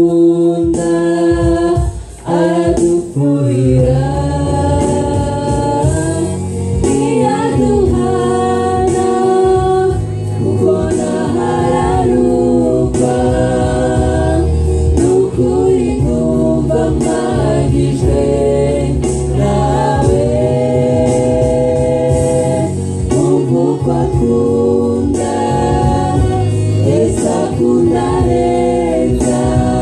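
Small gospel choir of women's and men's voices singing together into microphones.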